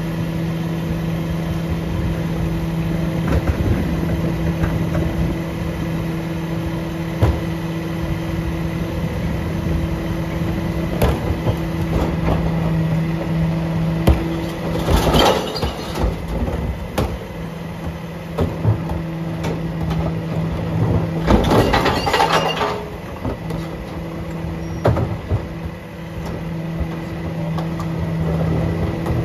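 Curbtender mini rear-loader garbage truck idling with a steady hum while its cart tipper dumps recycling carts into the rear hopper. The contents crash in loudly about halfway through and again, longer, about six seconds later.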